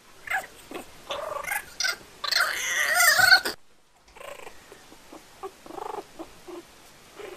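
Kitten and puppy play-fighting, giving pitched animal cries. They build to a loud, drawn-out yowl about two seconds in that cuts off suddenly, then give way to a run of softer short cries.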